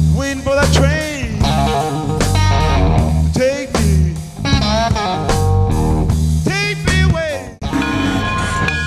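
Blues-rock theme music: electric guitar playing bent, sliding notes over a bass line. About seven and a half seconds in it breaks off sharply into a steadier passage of held tones.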